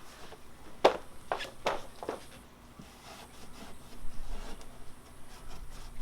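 Hand scrubbing strokes against a car's rear bumper area, cleaning off built-up grime: four short, quick strokes about a second in, then fainter rubbing.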